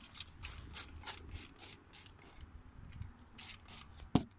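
Hand trigger spray bottle of cooking oil pumped rapidly, each pull a short hissing squirt, about four a second. The squirts pause for a second or so midway, then resume. A sharp knock near the end is the loudest sound.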